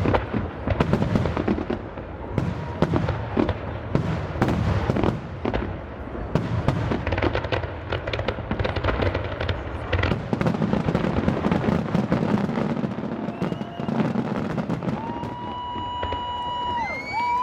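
Fireworks display: a dense run of bangs and crackles from aerial shells bursting, easing off after about fourteen seconds. Near the end a held, whistle-like tone comes in and begins to waver.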